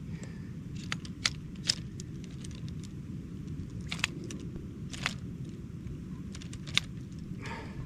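A small camping stove being handled and set up: about seven short, separate clicks and knocks spread over several seconds, over a steady low rumble.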